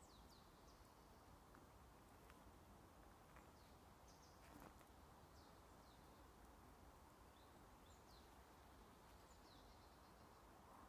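Faint, high bird calls: short downward-sliding chirps every second or so, over a quiet steady hiss, with a small tap about four and a half seconds in.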